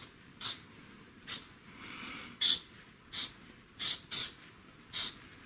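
Felt-tip marker drawing on spiral-notebook graph paper: about seven short scratching strokes, spaced half a second to a second apart, as diode symbols are drawn.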